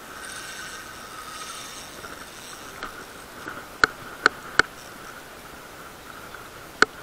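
Fishing reel's drag giving line in a few sharp clicks as a hooked false albacore pulls, three in quick succession and one more near the end, over a steady hum.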